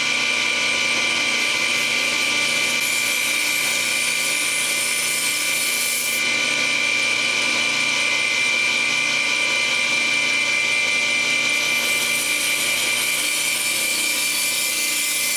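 Belt grinder running with a steady high whine while a steel chef's knife blade is ground against the abrasive belt. The grinding hiss grows brighter twice, about three seconds in and again past eleven seconds.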